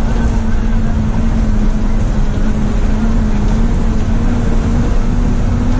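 Truck's diesel engine running steadily, heard from inside the cab while driving, with its pitch creeping slightly upward through the stretch.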